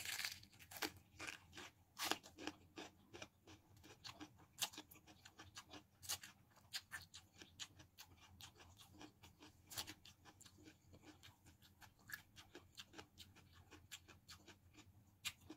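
Faint close-up eating sounds: crisp crunches and mouth clicks of someone biting and chewing raw bitter gourd and spicy noodles, many short, irregular crunches.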